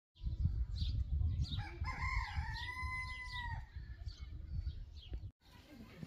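A rooster crowing once, one long arching call of about two seconds, over a steady low rumble with small chirps of other birds. The sound cuts off suddenly about five seconds in.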